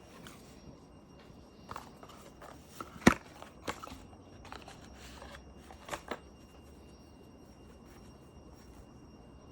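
A few short clicks and knocks from objects being handled, the sharpest and loudest about three seconds in, then a quick double knock about six seconds in.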